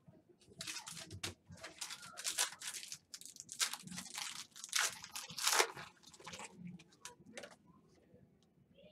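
Trading-card packaging crinkling and rustling as it is handled, in a run of irregular bursts that dies down after about six seconds.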